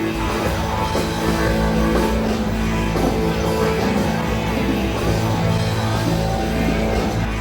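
Live band playing rock music with guitars and bass, amplified through a PA system during a sound check.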